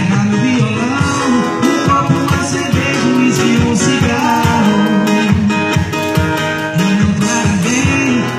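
Sertanejo music playing steadily, led by guitar with a beat.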